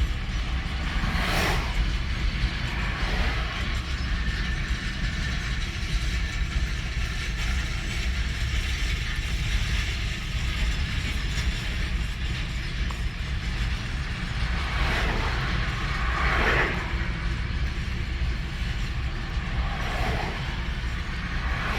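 Freight train wagons rolling past: a steady low rumble of wheels on rails, with a few short creaks and squeals from the wagons.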